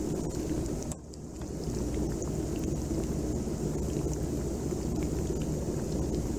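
Battered chicken pieces deep-frying in hot oil: a steady bubbling sizzle with many small crackles. This is the second fry that turns the pieces golden brown.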